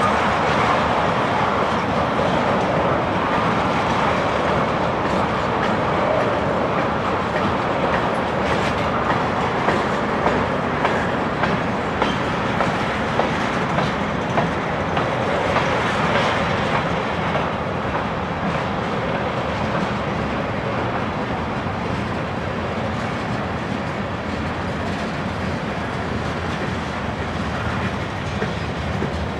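Freight train cars, mostly tank cars, rolling slowly past: a steady rumble of steel wheels on rail with repeated clicking over the rail joints.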